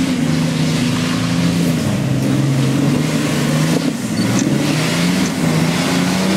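Nissan Patrol 4x4's engine working under load as it crawls over rough off-road ground, the revs dipping and rising.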